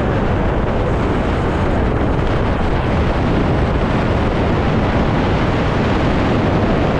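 Loud, steady wind noise buffeting the microphone of a rider coasting downhill on an electric dirt bike; no motor tone stands out from the rush of air.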